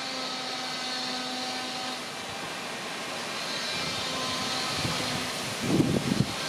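Wind rushing steadily, with a gust buffeting the microphone in low rumbles near the end.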